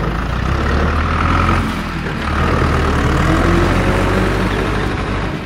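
Heavy truck engine running with a steady low rumble.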